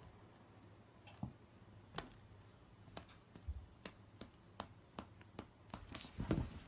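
Faint, irregular clicks and taps, about one a second at first and coming closer together near the end with some rustling.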